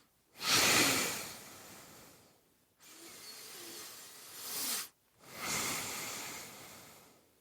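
A person's slow, heavy breathing, recorded close to the microphone. There are three long breaths of about two seconds each, with short pauses between them. The middle breath swells toward its end.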